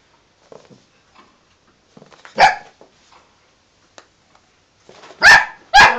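Cavapoo puppy barking: one sharp bark about two and a half seconds in, then two more in quick succession near the end.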